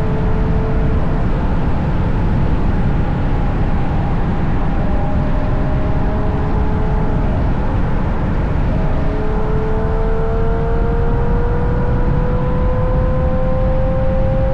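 Heavy wind and road rumble on an outside-mounted camera as a Ferrari GTC4Lusso with a Capristo exhaust drives at speed, its engine note faint beneath the rumble and climbing slowly in pitch over the second half.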